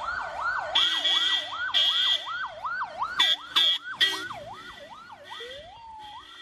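Emergency vehicle siren on a fast yelp, sweeping up and down about three times a second, then switching to a slower wail about five seconds in. Vehicle horn blasts sound over it about one and two seconds in, then three short blasts between three and four seconds.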